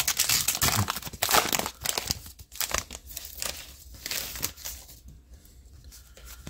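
A baseball card pack's wrapper crinkling and tearing as it is opened by hand, with dense crackling for the first two seconds or so. It is followed by lighter rustling as the cards are pulled out and handled, fading soft over the last couple of seconds.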